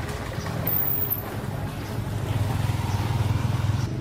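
A small engine running steadily at low speed, with an even low pulsing throb.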